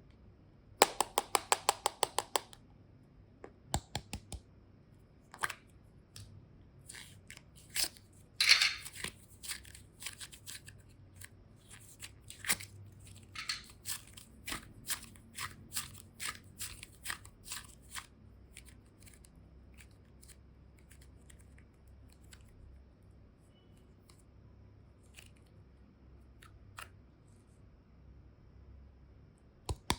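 A quick run of sharp clicks about a second in, then scattered clicks and crackles for about fifteen seconds, then mostly quiet with a few faint ticks.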